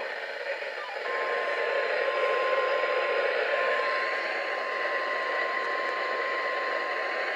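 Weather radio receiver hissing with static, with the NOAA Weather Radio warning alarm tone, a single steady high tone, coming in about a second in under the static and dropping out briefly partway through. The tone signals that an emergency alert is about to be broadcast.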